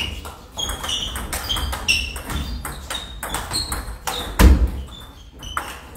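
Table tennis rally: a celluloid ball clicking off the bats and the table in quick, irregular succession, with more ball clicks from neighbouring tables in a large hall. A single heavy thump about four and a half seconds in is the loudest sound.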